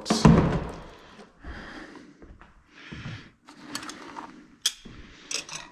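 Plastic parts bags rustling in short bursts as small hardware is handled, with a few sharp clicks near the end.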